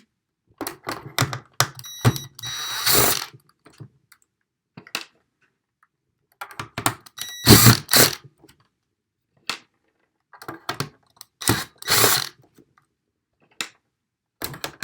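Clicks, scrapes and clatter of a small screwdriver working tiny Phillips screws out of a plastic electronics case, in irregular bursts with pauses between. Twice, at about two seconds and again near the middle, a small metal part gives a short ring.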